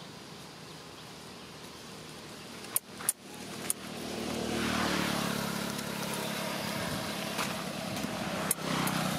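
A motor vehicle's engine running steadily, growing louder about four seconds in and then holding. A few sharp clicks come around three seconds in and again near the end.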